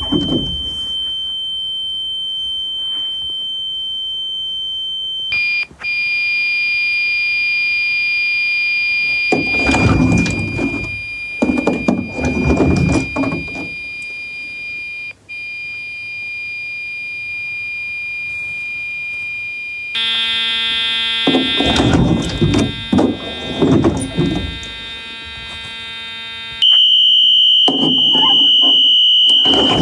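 Electronic fire alarm horn tones sounding steadily and changing setting: a high pure tone, then about five seconds in a buzzing electromechanical-style tone, a lower buzzing tone from about twenty seconds in, and the high pure tone again, louder, near the end.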